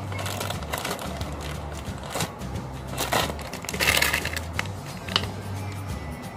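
Plastic bottle being handled: several rustling scrapes, then a sharp click about five seconds in as its flip-top cap snaps open. Background music with low bass notes plays under it.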